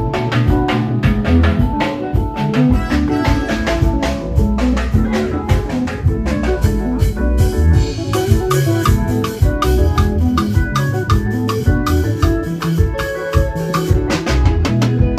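Up-tempo band music driven by a drum kit and shaken percussion, with a heavy bass and keyboard notes; a quick repeated keyboard figure comes in about halfway through.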